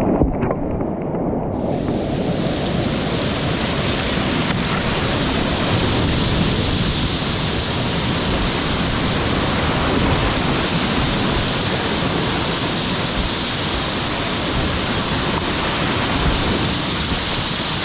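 Mountain stream water rushing steadily, with low rumbling that sounds like wind on the microphone. The hiss brightens sharply about a second and a half in.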